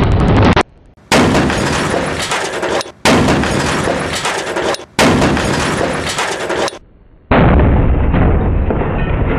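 Loud blast of a black-powder charge inside a microwave, heard in three back-to-back cuts about two seconds each, separated by sudden short silences, with a steady loud noise after the last gap.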